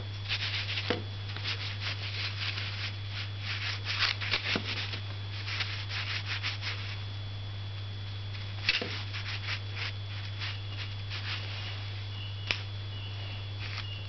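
Light rustling and scratchy ticks of hands handling materials on a table, with a few sharper clicks, over a steady low hum.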